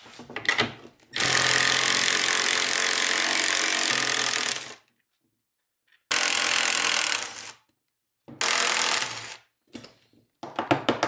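Cordless impact driver with a half-inch deep socket spinning off the nuts that hold the old carbide runners to a snowmobile ski: one long run of about three and a half seconds, then two shorter bursts, with a few knocks of handling around them.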